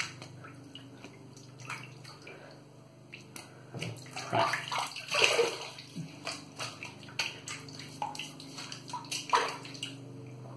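Water splashing as hands rinse shaving lather off the face and ears at a sink, with louder splashes around the middle and near the end.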